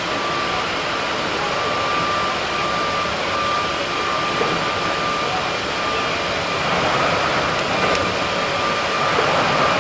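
Running sound of a Keikyu 1700 series electric train with Toyo GTO-VVVF traction, heard from inside the car: a steady rumble of wheels on track with a thin high whine that comes and goes, growing a little louder in the second half.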